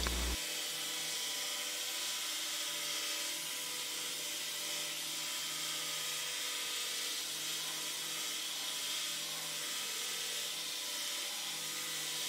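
Belt grinder running with no work on the belt: a steady motor whir and belt hiss that does not change.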